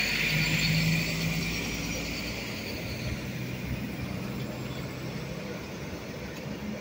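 Koleje Dolnośląskie SA135 diesel railcar pulling away past the platform: engine drone and wheel-on-rail rumble, with a high wheel squeal that fades over the first couple of seconds. The whole sound dies away steadily as the train recedes.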